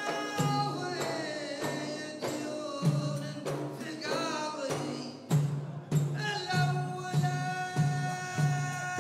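A Gulf folk-style song: men's voices singing a winding melody over frame drums. From about halfway the drums settle into a steady beat about twice a second.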